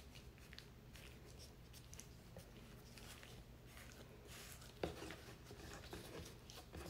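Faint handling sounds of oiled dough being folded and rolled by hand on a wooden cutting board: soft rustles and squishes over a low steady hum, with one sharper tap about five seconds in.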